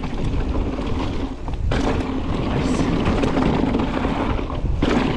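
Mountain bike riding fast on a dirt-and-gravel trail: a steady rough rumble of tyres on the ground and rattle from the bike, which gets louder and harsher twice, about two seconds in and near the end.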